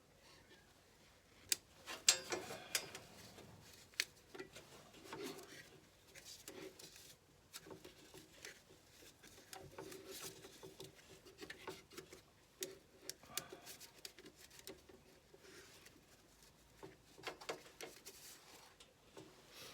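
Faint scattered clicks, taps and light rustles of small objects being handled, the sharpest about two seconds in.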